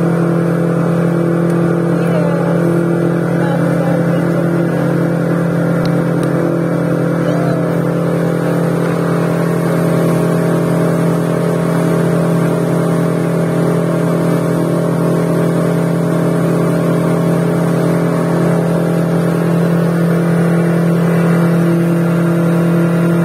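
A 50 hp outboard motor running at a steady cruising speed with a constant hum that does not rise or fall, over the rush of water and wind as the boat moves fast.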